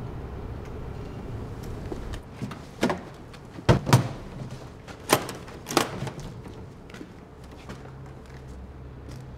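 Metal latches of a hard carrying case being snapped open: five sharp clicks and knocks, the loudest two close together, after a low hum that stops about two seconds in.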